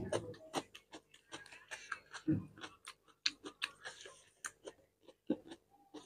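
Close-miked eating sounds of a man eating rice and curry by hand: irregular wet clicks and smacks, several a second.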